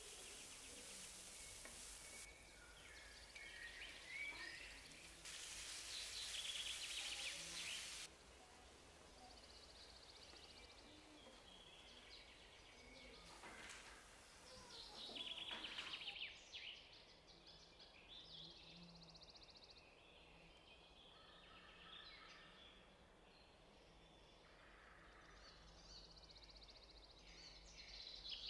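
Faint sizzling of onion and chicken frying in a nonstick frying pan, in short stretches that start and stop abruptly. About fourteen seconds in, water is poured into the hot pan.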